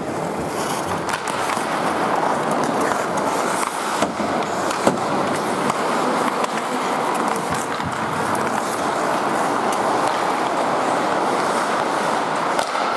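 Ice hockey skates scraping and carving on rink ice, with clacks of sticks and puck, one sharp clack about five seconds in.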